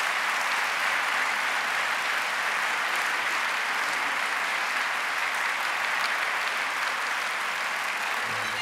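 Large audience applauding steadily in an auditorium.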